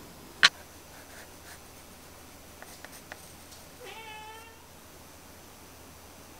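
A single short animal call about four seconds in, one pitched note that rises slightly at its start and then holds for about half a second, with the character of a cat's meow. A sharp click about half a second in is the loudest sound, and a few faint ticks come just before the call.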